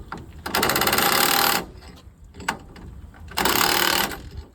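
Impact wrench hammering in two bursts, the first about a second long and the second shorter, driving bolts tight on a pipe fitting.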